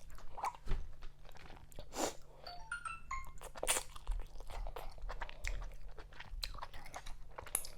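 Close-miked eating sounds: wet chewing, smacking and biting of fufu with okra vegetable soup. Near the middle comes a quick run of short, stepped high tones.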